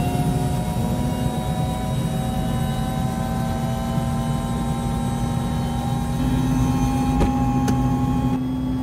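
Small helicopter's engine running steadily, heard from inside the cabin: a steady low rumble with a few held tones above it.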